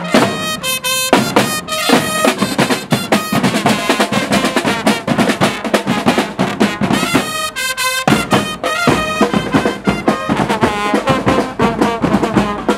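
Carnival brass-and-drum band playing: marching snare drums keep up a steady, dense beat under trombones.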